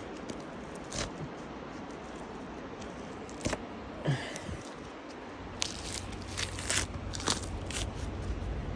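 Fingers picking and tearing at a tree's stringy bark, giving small crackles and snaps of fibres pulling loose. The snaps are sparse at first and come thick and fast in the second half, over a low rumble of handling.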